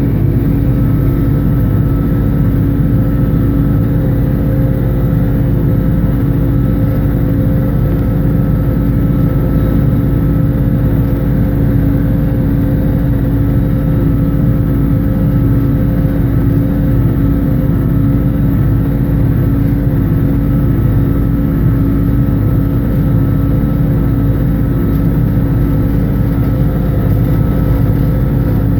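International 986 tractor's diesel engine running at a steady speed under load, pulling a John Deere 346 hay baler. It is a constant hum with heavy low rumble and a faint thin whine above it.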